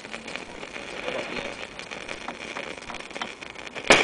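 Crackling static and hiss from a Bush VHF valve radio's loudspeaker while it is tuned between stations, with one loud sharp click near the end.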